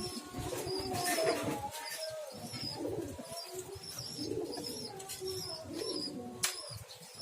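Domestic pigeons cooing, with a faint high chirp repeating regularly about every two-thirds of a second.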